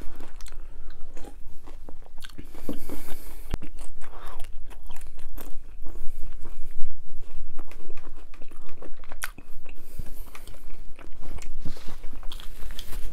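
Close-miked chewing and crunching of a hard gluten-free pizza crust, a dense run of irregular crackles and clicks. The crunch is loud because the crust is a bit too hard.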